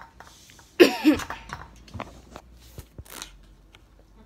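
A person coughing, a loud double burst about a second in, followed by a few soft knocks and rustles.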